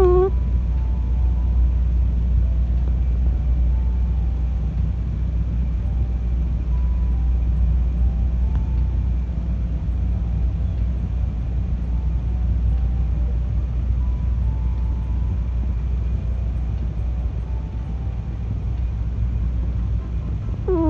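Sleeping cat snoring: a steady low rumble with slight swells in level.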